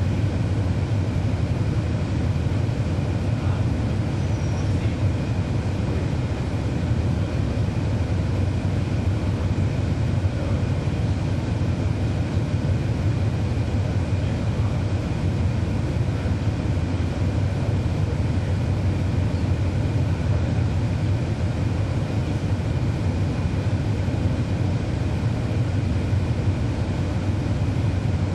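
Cabin sound of a 2012 NABI 40-SFW transit bus with a Cummins ISL9 inline-six diesel, running steadily: a deep, even engine and road drone that holds level with no change in pitch.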